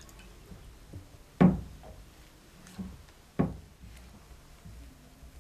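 Knocks on wood: two loud ones about two seconds apart, with fainter taps between them.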